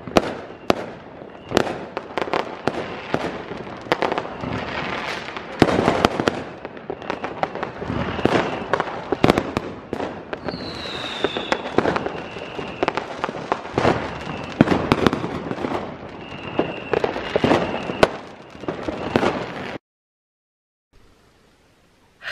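New Year's fireworks going off all around: a dense, irregular string of bangs and crackles, with a short falling whistle about halfway through. It cuts off abruptly near the end.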